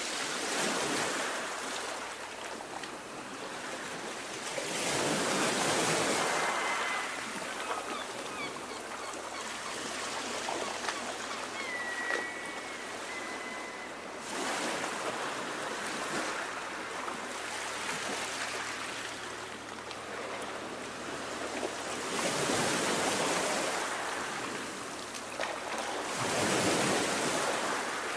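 Choppy sea water washing and lapping in a steady hiss, swelling louder as bigger wavelets come through, about five seconds in and twice more near the end.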